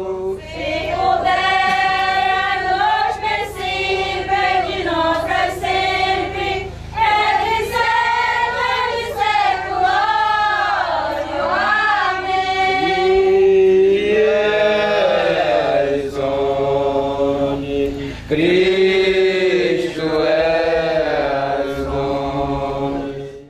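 Folia group singing a slow devotional hymn together, with long held notes that slide between pitches.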